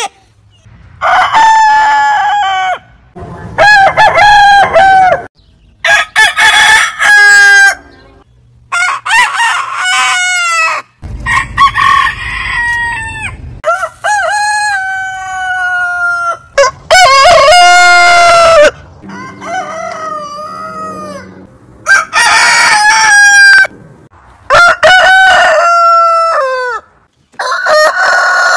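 Roosters crowing one after another, about eleven crows in a row, each lasting a second or two. Several different roosters are heard in turn, so the pitch and length change from crow to crow.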